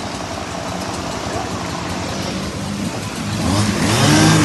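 Motor vehicle engine running amid steady road noise, growing louder in the last second.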